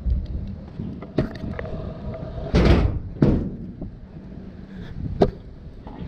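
Stunt scooter wheels rolling over concrete with a steady rumble, broken by several sharp knocks and bangs as the deck and wheels hit the ground. The loudest bang comes about two and a half seconds in, and a sharp click just after five seconds.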